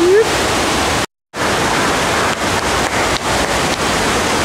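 Continuous loud rush of water from a FlowRider surf-wave machine, pumped water shooting up and churning over the ride surface. It cuts out completely for a split second about a second in, then resumes.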